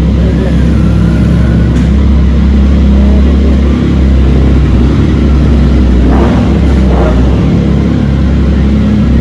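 Motorcycle engine running steadily with a loud, low, even rumble.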